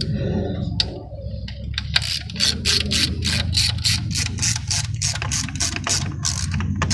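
Hand ratchet on a long extension and 10 mm socket clicking as it runs the coil pack bolts down, a few scattered clicks at first, then an even run of about four clicks a second from about two seconds in. The bolts are being snugged, not yet torqued.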